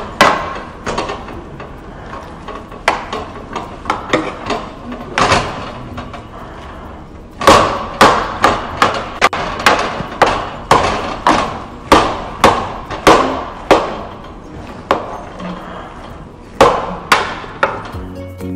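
Hand potato masher pounding boiled potatoes in a pot: repeated strikes, sparse at first, then a steady run of about two a second through the middle, and two more near the end.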